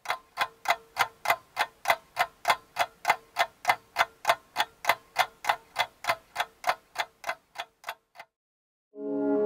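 Clock-like ticking, about three even ticks a second, that stops about eight seconds in; after a brief gap, brass music begins near the end.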